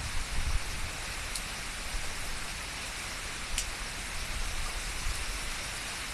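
Typhoon rain falling steadily as an even hiss, with a couple of sharp drop ticks.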